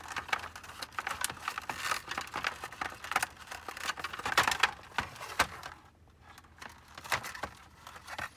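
Taped cables being wiggled and worked through the plastic dome of a Zebra LP2844 label printer: rapid rustling, crinkling and clicks of plastic handling. The handling eases off after about five seconds, leaving a few scattered clicks.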